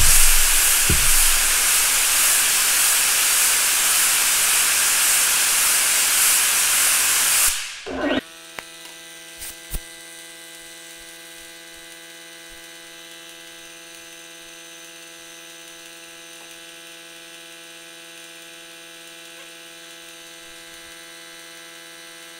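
Standard pneumatic air blow gun letting out a loud, steady blast of air for about seven and a half seconds, then shut off. About a second later the shop's Craftsman dual-piston air compressor kicks on and runs with a steady hum, refilling the tank after the air use.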